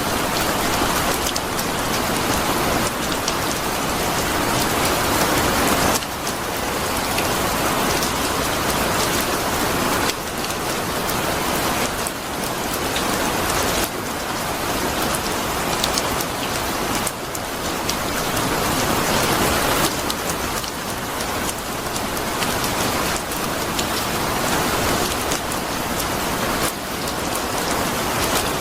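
Steady rain falling on a surface, a dense even hiss with scattered sharp drop ticks. The texture shifts abruptly every few seconds.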